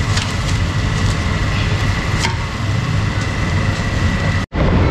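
Busy market din: a steady rumble with a thin steady whine over it and a few sharp knocks, cutting out for an instant near the end.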